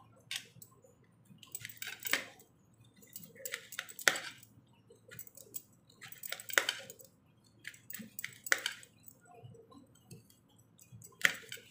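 Kitchen knife slicing bitter gourd into thick rounds on a steel plate, each cut ending in a sharp clink of the blade on the plate, about one every two seconds with a few fainter clicks between.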